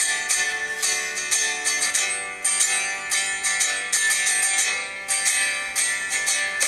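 Background music led by a strummed guitar, playing in a steady rhythm.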